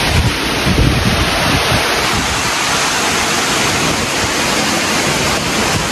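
Hurricane wind and heavy rain: a loud, steady rushing noise, with irregular gusts buffeting the microphone.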